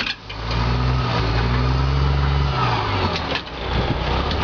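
A vehicle engine running steadily at low revs, with two brief dips in loudness, just after the start and about three and a half seconds in.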